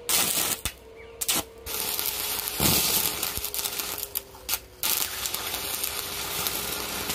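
Electric arc welding crackling and spitting on galvanised, heavily painted steel. It gives a short burst, pauses, then runs in longer runs with brief breaks where the arc stops and restarts.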